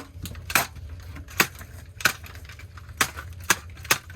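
Hammer blows cracking into the plastic casing of a cheap alarm clock radio: about seven sharp knocks at uneven gaps of roughly half a second to a second.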